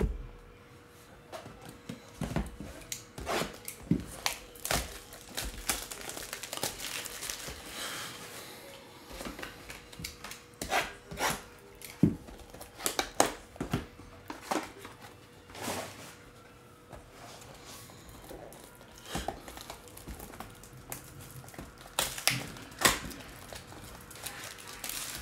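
Crinkling and tearing of the plastic wrap and cardboard of a sealed Bowman Chrome trading-card box as it is handled and opened. Irregular crackles and sharp taps are scattered throughout.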